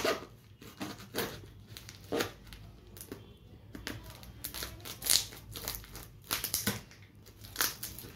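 Knife cutting and scraping at brown packing tape on the end of a cardboard mailing tube, the tape and paper crinkling and tearing in irregular short scrapes and clicks.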